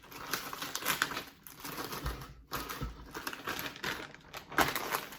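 Pieces of frozen fruit dropping into a blender jar, an irregular run of small clicks and knocks, with a louder knock near the end.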